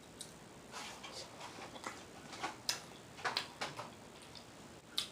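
Soft, irregular wet mouth smacks and clicks of someone chewing food close to the microphone, a dozen or so short sounds spread unevenly.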